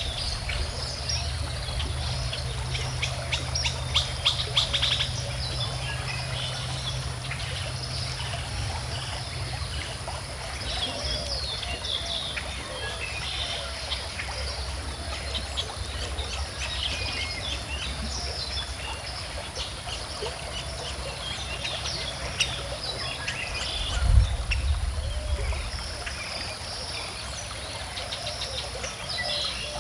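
Many birds chirping and singing over a steadily flowing stream, with one low thump about four-fifths of the way through.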